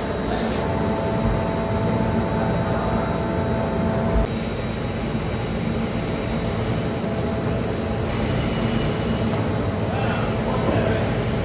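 Steady mechanical noise, a low rumble under a hiss, with a faint whine that cuts off about four seconds in.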